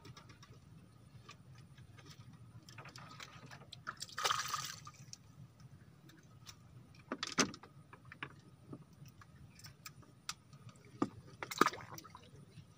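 Quiet waterside ambience with a faint steady low hum, a short rush of water about four seconds in, and a few sharp clicks from fishing rods being handled on the bamboo raft.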